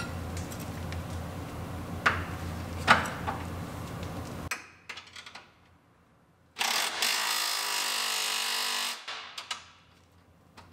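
Low background hum with a couple of sharp metal clicks. After a short quiet gap, a cordless electric impact wrench runs steadily for about two and a half seconds, doing the final tightening of the lower control arm's rear bushing bolt with the suspension loaded. It then stops, followed by a few small clicks.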